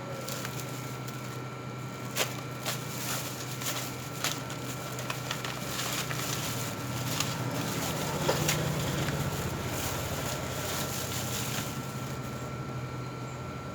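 Eating sounds: scattered short clicks and taps of a spoon on a plate and chewing of nasi pecel, over a steady low hum.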